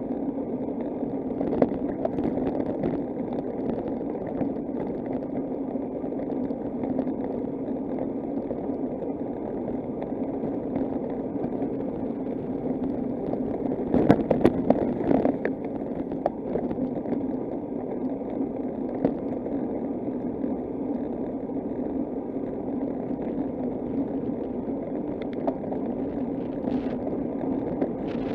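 Steady rolling and wind noise of a bicycle being ridden, with an even low hum throughout. A short spell of sharp rattling knocks comes about halfway through.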